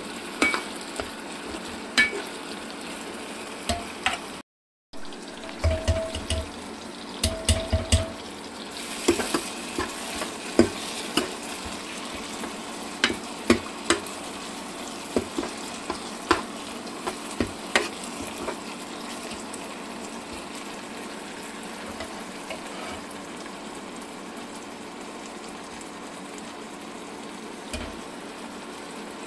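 Onion and tomato masala sizzling steadily as it fries in oil in an aluminium pan, with a steel spoon stirring and clicking against the pan. The clicks come often through the first two-thirds and thin out near the end, leaving mostly the sizzle; the sound cuts out for a moment about four seconds in.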